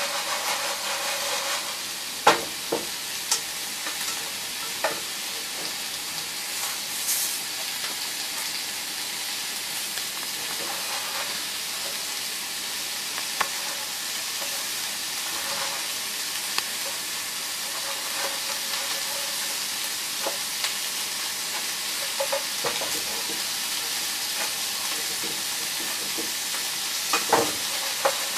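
Chicken breast cutlets frying in oil in a pan: a steady high sizzle, with scattered short knocks, the loudest about two seconds in and a cluster near the end.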